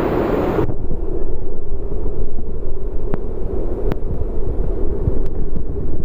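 Wind buffeting the microphone as a steady low rumble, with a few faint clicks. Less than a second in, a brighter hiss cuts off abruptly and the rumble takes over.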